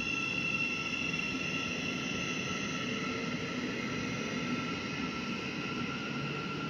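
Electric multiple unit running on the far track: a steady, high electric traction-motor whine of several tones over a rumble of wheels on rails, the highest tones fading after about three seconds.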